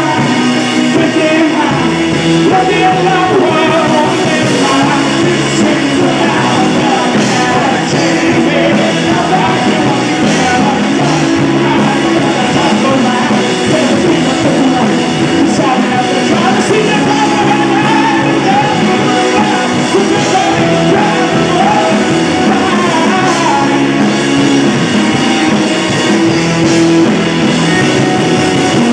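Live rock band playing loud and steady: electric and acoustic guitars, bass guitar and a drum kit, heard through the room's PA.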